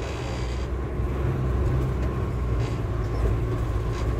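Steady low rumble of wind and motion noise on the microphone while riding along a paved path.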